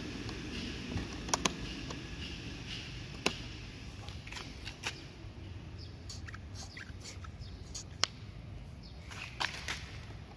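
Scattered sharp plastic clicks and handling sounds as the stop switch and primer bulb of a Makita EK7651H four-stroke power cutter are worked by hand.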